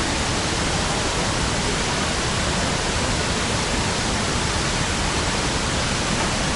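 Iguazu Falls: a steady, dense rush of water pouring down the falls.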